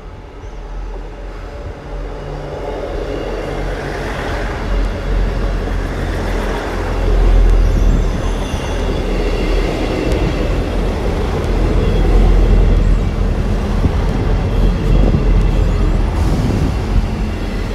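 Two coupled South Western Railway Class 159 diesel multiple units arriving and running past along the platform: underfloor diesel engines and wheels on the rails rumbling steadily, growing louder as the train draws alongside about seven seconds in.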